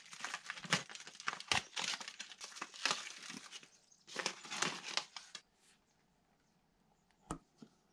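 Protective wrapping crinkling and tearing as it is pulled off wooden wall brackets, in busy bursts for about five seconds, then one sharp knock near the end.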